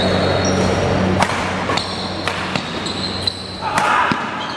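Badminton doubles rally: rackets strike the shuttlecock about five times in sharp cracks, with short high squeaks of shoes on the court floor.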